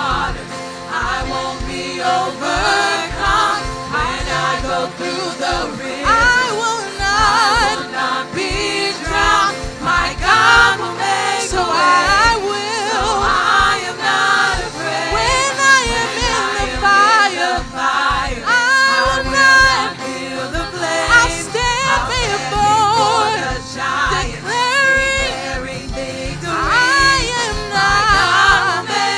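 Gospel worship music: a band with many voices singing together over a steady beat.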